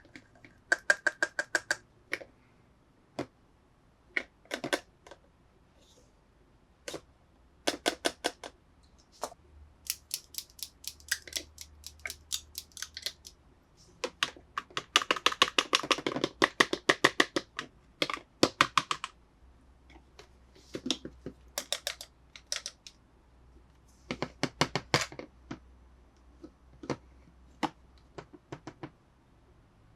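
Hard plastic toy pieces being handled, giving quick runs of sharp clicks and taps in bursts separated by short pauses, with a longer, denser run about halfway through.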